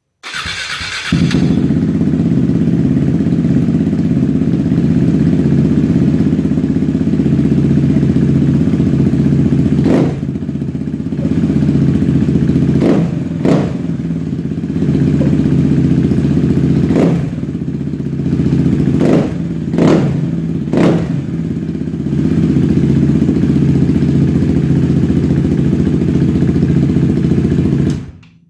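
Husqvarna Svartpilen 401's single-cylinder four-stroke engine starting up and catching within about a second, then idling steadily with several short throttle blips in the middle, before being switched off near the end.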